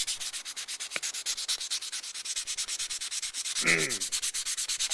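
Fine-grit sandpaper (about 800 grade) rubbed in rapid, even back-and-forth strokes over the painted plastic hull of a model kit, sanding a rough spot smooth.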